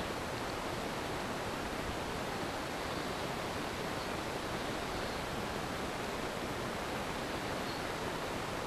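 Steady, even hiss of noise, unchanging in level.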